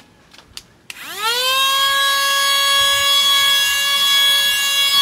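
Cordless handheld mini vacuum cleaner switched on about a second in after a few faint clicks: its small motor spins up with a quickly rising whine, then runs steady with a loud high whine and rushing air.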